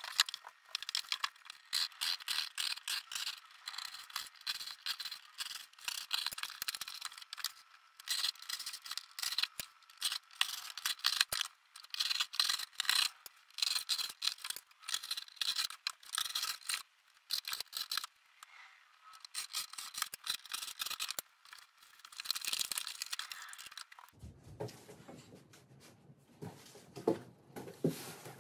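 A knife blade sawing and scraping through corrugated cardboard in runs of rapid short strokes, with brief pauses between runs. About four seconds before the end the cutting stops, leaving quieter knocks and handling of the box.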